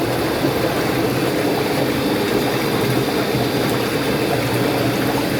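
Walk-in bathtub's jet system running in a full tub: a steady pump-motor hum with water churning and bubbling.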